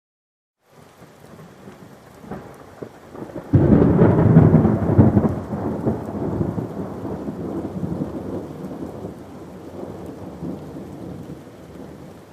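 After a brief silence, rain fades in. About three and a half seconds in, a loud clap of thunder breaks and rumbles on, dying away slowly under steady rain.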